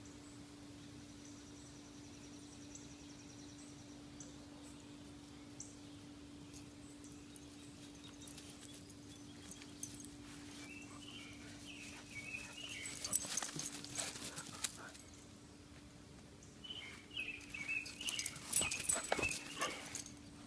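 Dogs making noise close to the microphone in two bouts of a few seconds each, about twelve and seventeen seconds in. Each bout has crackly rustling and a run of short high-pitched sounds.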